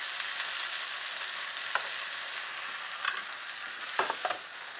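Sliced onions and green and red peppers sizzling steadily in bacon grease in a frying pan, with a few sharp clicks of metal tongs against the pan and glass baking dish.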